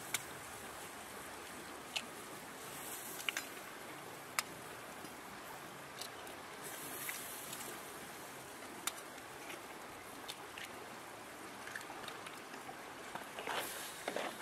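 Crab curry simmering in a wok: a steady sizzling hiss broken by a few sharp pops, with the crackling getting busier near the end.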